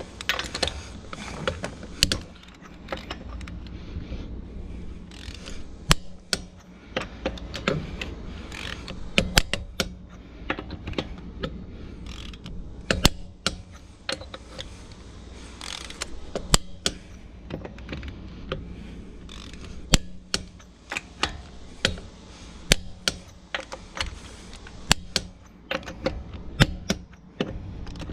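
Torque wrench ratcheting and clicking on wheel lug nuts as they are tightened to 140 ft-lb, with many sharp, irregularly spaced clicks.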